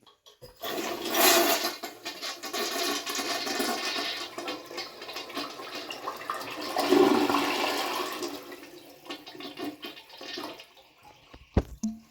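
A 1999 Crane Radcliffe Light toilet flushing: water rushes into the bowl about half a second in, surges again midway and drains away, fading out about eleven seconds in. Two short knocks near the end.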